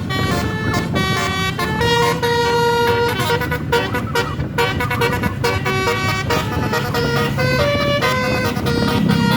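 Basuri telolet multi-note air horn on a tourist bus playing a melody, one held note or chord after another, changing every fraction of a second to about a second without a break. The bus's engine and road noise rumble underneath.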